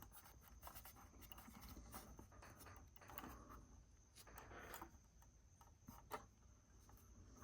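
Faint handling noise from a plastic RC crawler body being fitted over the chassis to check clearance: soft rubbing and scraping with a few light clicks, one sharper click at the start and another about six seconds in.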